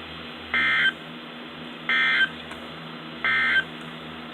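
Emergency Alert System end-of-message data signal: three short, identical bursts of warbling digital tones about a second and a half apart, marking the close of the severe thunderstorm warning broadcast.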